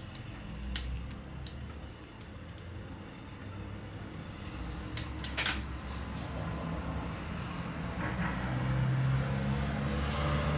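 Scattered small clicks and taps of a plastic spudger and tweezers working on the connectors and parts inside an opened Samsung Galaxy S7 Edge, a few sharper clicks about a second in and again around the middle. Beneath them is a steady low rumble that grows louder near the end.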